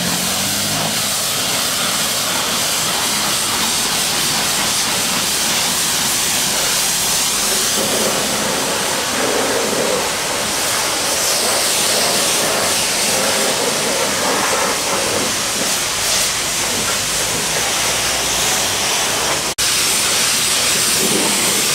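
High-pressure car-wash wand spraying a jet of water onto a car, a loud steady hiss, broken once for an instant near the end.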